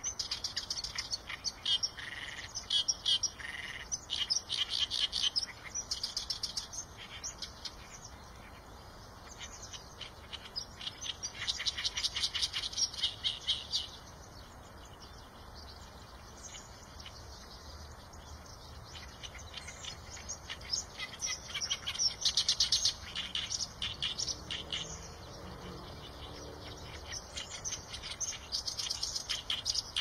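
Reed warbler singing: phrases of rapid, chattering notes a second to three seconds long, repeated with short pauses between them.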